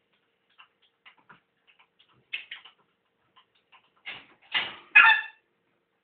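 African grey parrot: a run of faint light clicks, then three short loud calls from about four seconds in, the last one loudest and pitched.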